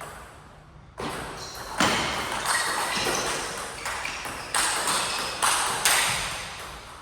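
Table tennis rally: the celluloid-plastic ball clicking off paddles and the table, about eight sharp hits in quick succession starting about a second in.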